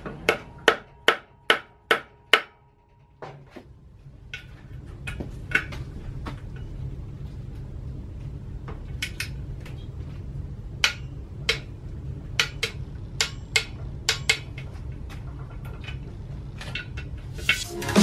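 Sharp metallic clicks and taps from hand tools working on the clutch pressure plate and flywheel of a BMW N47 engine. It opens with a run of six evenly spaced clicks, about two and a half a second, and after a short break single clicks come at irregular gaps. Electronic music starts right at the end.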